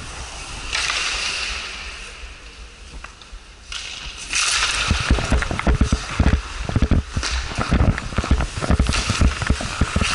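Ice hockey skate blades scraping and cutting the ice, a hiss that swells shortly after the start and again from about four seconds in. From then on it is joined by rapid, irregular low thuds and knocks as the camera is jostled in play.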